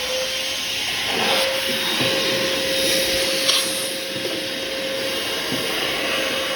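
Vacuum cleaner running at full speed while dust is sucked out of a furnace, a steady motor whine over loud rushing air, the rush changing a little as the nozzle moves.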